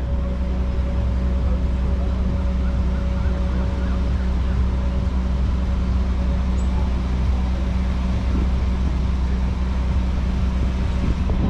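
River boat's engine running steadily under way, a constant low drone with a faint steady whine above it.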